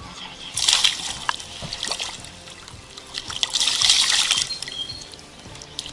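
A hooked bass thrashing and splashing at the water's surface, in two bursts of splashing: one about a second in and a longer one around four seconds in.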